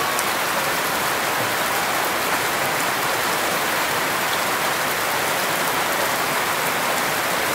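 Strong stream of water from an outdoor shower splashing steadily onto a person and the ground.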